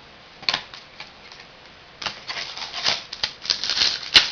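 Crinkling and rustling of a foil trading-card pack wrapper being torn open and handled, starting about two seconds in after a couple of light clicks, with a sharp snap near the end.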